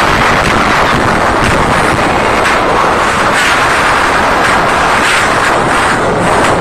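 Concert crowd screaming continuously, loud enough to overload and distort the phone's microphone.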